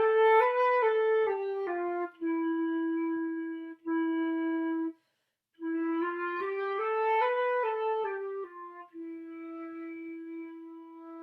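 Flute playing a slurred stepwise phrase, E up through F, G, A to B and back down to E, louder toward the top and softer coming down, followed by held E's. The phrase comes twice, the second time ending on a long soft E.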